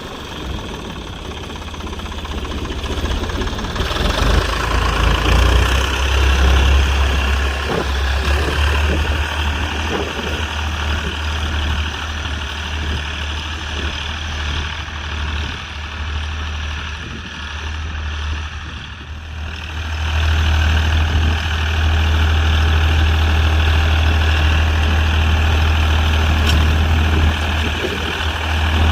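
Classic Ford tractor engine running steadily while ploughing, a constant low drone that gets louder about two-thirds of the way through.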